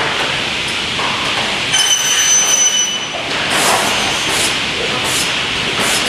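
Plastic window-profile machining machine running with a steady mechanical din. About two seconds in, a high-pitched whine lasts about a second, followed by a few short, sharp hisses.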